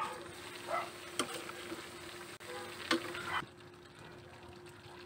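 A spatula stirring and scraping through pork igado in a pan, with sharp clicks against the pan over a sizzle. The stirring stops about three and a half seconds in, leaving a quieter simmer.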